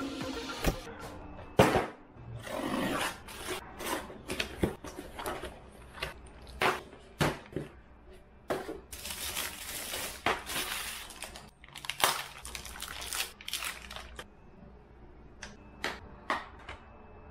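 A cardboard shipping box being set down on a metal workbench and opened by hand: irregular sharp knocks, with tearing and crinkling of cardboard. Near the end, a plastic organiser case of wire terminals is handled.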